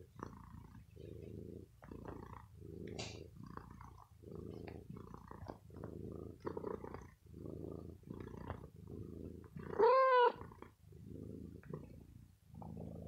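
Tabby house cat purring right against the microphone, the purr coming in pulses about once a second with its breathing. About ten seconds in, the cat gives one short meow that rises and falls in pitch; it is the loudest sound.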